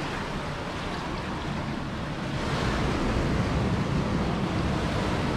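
Ocean surf breaking and foam washing up over the sand between rocks, the wash swelling louder about halfway through.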